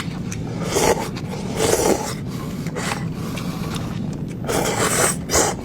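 Close-up eating noises: several rough, scraping bursts about a second in, around two seconds in and near the end, with a few sharp clicks in between.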